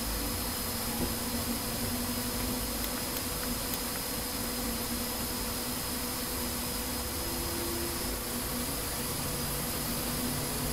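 Steady background hiss with a constant low hum, unchanging throughout.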